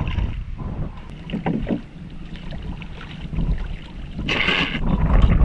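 Water lapping and splashing at a small boat, with wind rumbling on the microphone; a louder splash about four seconds in.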